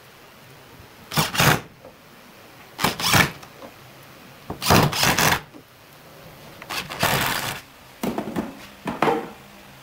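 Cordless drill driving wood screws into pine slats in short bursts, about four times a couple of seconds apart. Two shorter, choppier noises follow near the end.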